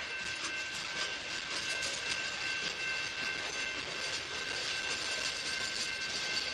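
Freight cars rolling past on the rails: a steady rumble and wheel noise with faint clicks, and thin steady high-pitched squealing tones over it.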